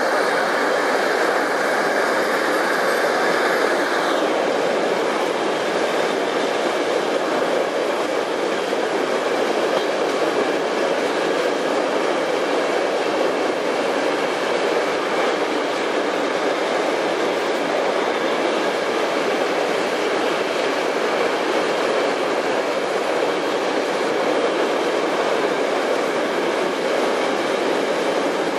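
Container freight train on flat wagons rolling past close by: a steady, continuous rolling noise of steel wheels on rail. A high whine fades out over the first four seconds.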